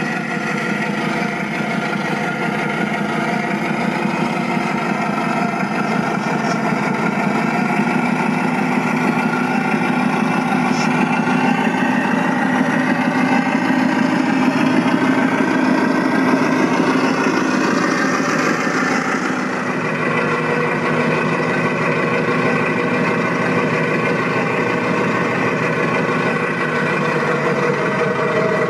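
Steady truck-engine idling sound from a large RC airport crash tender model. A faint high hiss rises briefly about two-thirds of the way through.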